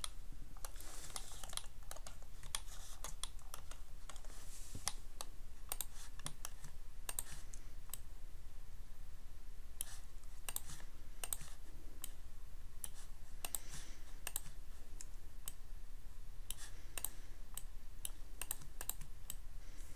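Computer keyboard keys and mouse buttons clicking at an irregular pace, with a steady low hum underneath.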